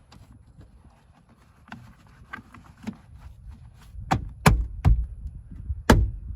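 Plastic interior trim and cables being handled: scattered light clicks and rustles, then four sharp knocks from about four seconds in as a plastic panel is pushed back into place.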